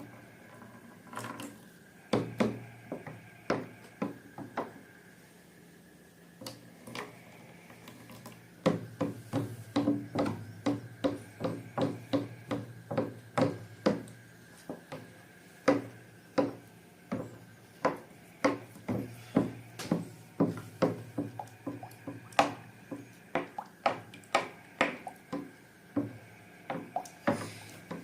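Slime being pressed and worked by hand, giving repeated short sticky clicks and pops, a few at first and then about two or three a second.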